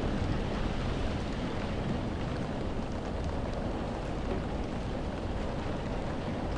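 Heavy rain pattering steadily on window glass, heard from inside a room, over a constant low rumble of wind.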